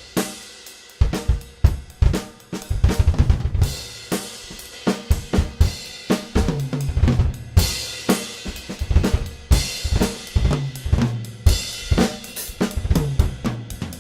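Acoustic drum kit played with kick, snare, hi-hat and cymbals, recorded through condenser overhead mics above the kit. After a brief gap, the playing comes back in about a second in, and cymbal crashes ring out several times.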